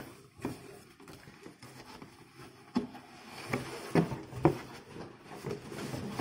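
Cardboard being handled: a shipping box's flaps folded back and the boxed toy slid up out of it, rustling and scraping with a few sharp knocks, the loudest about four and four and a half seconds in.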